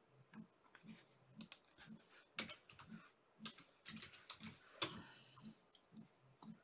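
Faint clicking and tapping, with a short rustle about five seconds in, over a soft low pulse about twice a second.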